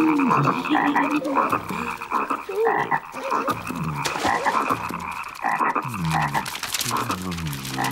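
Many cartoon frogs croaking at once, a dense chorus of overlapping croaks.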